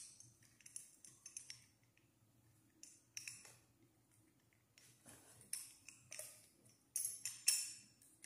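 Small metal ceiling-fan parts being handled against the fan's metal downrod: irregular light metallic clinks and clicks, the loudest cluster near the end.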